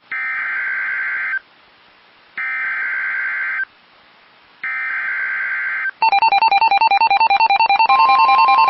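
Emergency Alert System SAME header: three identical bursts of buzzy digital data tones, each about a second long, a second apart. These are followed by an alert tone pulsing rapidly between two pitches, joined near the end by a steady tone: the NOAA Weather Radio warning alarm.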